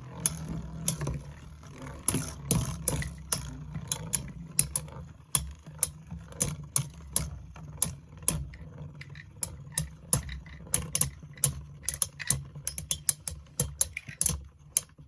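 Two Metal Fusion Beyblades, Lightning L-Drago and Storm Pegasis, spinning and battling in a Beyblade stadium: irregular sharp clicks and clacks as the metal tops strike each other and the stadium, over a low steady hum. The clicks come faster and closer together in the last few seconds.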